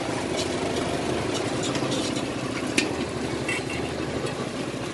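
Street-market background noise over a steady low engine hum like an idling motor, with scattered light metallic clinks and one sharp click about three seconds in.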